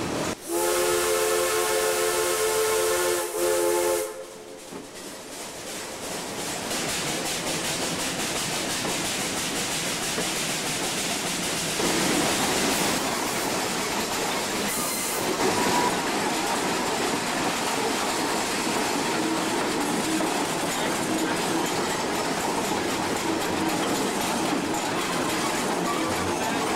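Steam locomotive whistle blowing a chord of several tones for about four seconds. After it, the steady rumble and clatter of the train running over the rails, heard from an open car close behind the tender.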